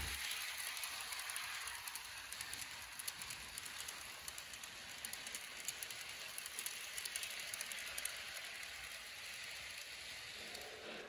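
Small model train running around sectional track: a faint, steady rushing hiss with fine, rapid clicking of the wheels on the rails.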